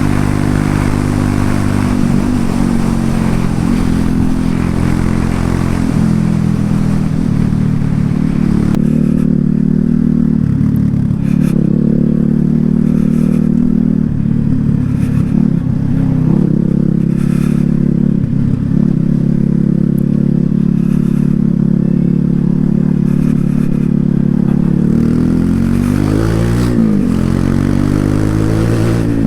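Loncin LX250-12C motorcycle's single-cylinder engine and exhaust running while riding through the city, the note rising and falling with the throttle. A rushing hiss sits over it for the first nine seconds or so, and near the end the pitch drops and climbs again.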